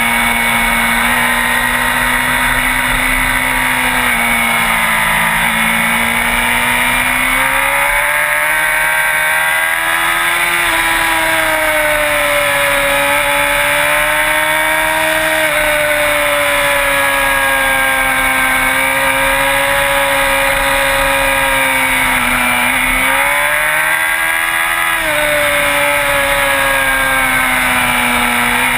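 Sport bike engine running steadily at high revs, its pitch rising and falling slowly as the throttle is eased on and off, with two brief dips and recoveries, one near the middle and one shortly before the end.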